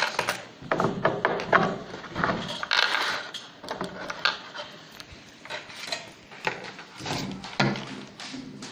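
Irregular clicks, knocks and rattles of computer power-supply cables and plastic connectors being handled and plugged into an opened hard disk drive.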